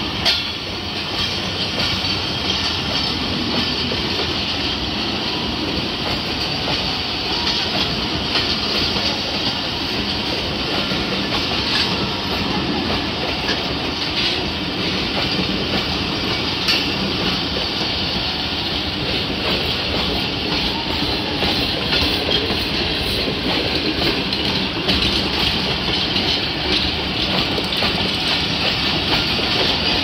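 Passenger coaches of an express train rolling past: a steady rumble of steel wheels on the rails, with occasional clicks as the wheels pass over rail joints.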